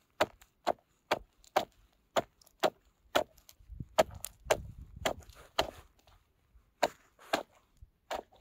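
Steel ice chisel (pick) chopping a hole in thin first ice: a steady run of sharp blows, about two a second, with a brief pause about six seconds in.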